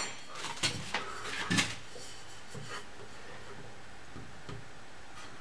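A few light knocks and clatters of a metal piece being picked up and set down on a workbench, bunched in the first two seconds, then only faint ticks over a steady hiss.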